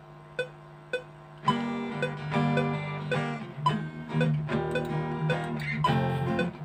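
Playback of a recorded Yamaha F310 acoustic guitar track, strummed chords that come in about a second and a half in, over a DAW metronome clicking about twice a second, with accented clicks at the start of each bar. The track is playing through Cubase 5's built-in compressor.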